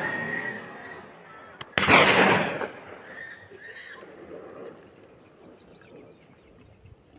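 A single gunshot from a hunter's gun about two seconds in: a sharp crack with a short echo that dies away over most of a second.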